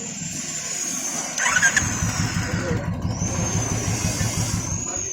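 Single-cylinder motorcycle engine running with a steady, even beat, likely the repaired Royal Enfield Classic 350 after its starter-noise fix. A high thin whistling tone rises and falls slowly over it.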